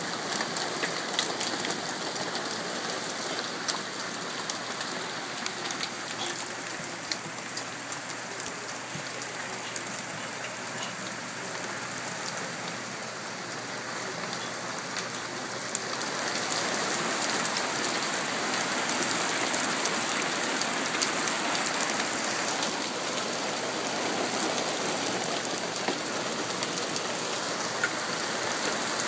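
Hail falling in a dense, steady patter of many small sharp ticks, growing louder a little past halfway through.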